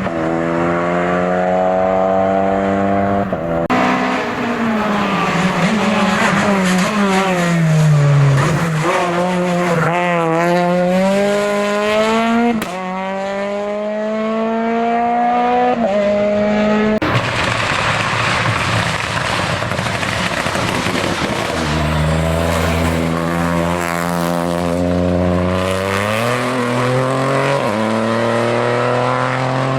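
Hill-climb race car engines accelerating hard, revs climbing and dropping sharply again and again with quick gear changes. The sound switches abruptly several times from one car to another.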